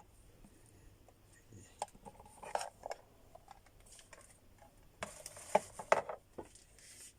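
Light clicks, knocks and rattles of a sewing machine's foot pedal and power cord being handled and plugged in, in a few short clusters, the busiest about five to six seconds in.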